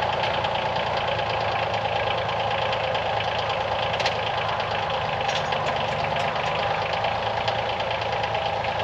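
Kioti CK2610 compact tractor's three-cylinder diesel running steadily, with a fast, even diesel clatter. A single sharper click about four seconds in.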